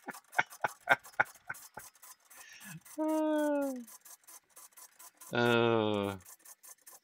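A cordless drill runs twice in short bursts, drilling holes through an aluminium J channel into a wing spar; the second, lower run is the fuller of the two. Before them comes a run of quick, fading clicks.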